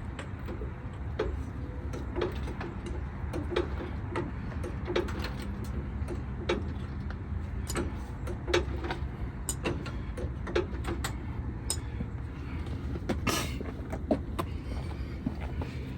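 Car jack being worked to lift the car higher: irregular sharp clicks and knocks over a steady low rumble.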